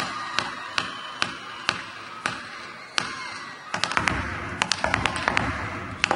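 A step dancer's hard-soled shoes striking a stage floor: single crisp taps about two a second, breaking into a fast flurry of taps about four seconds in.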